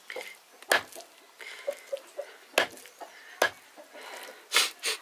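A heavy knife chopping chicken on a wooden log chopping block, with four sharp chops spread over a few seconds and light clicks between them. The meat is a mature rooster's and is tough to cut.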